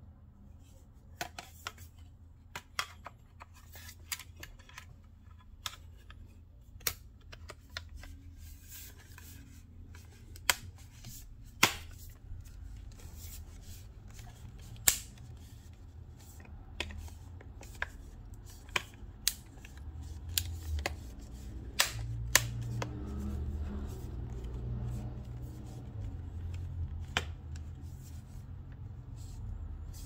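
Irregular sharp clicks and taps of plastic as a Samsung Galaxy Tab A 10.1's frame and housing are handled and pressed along their edges. A low rumble of handling grows louder in the second half.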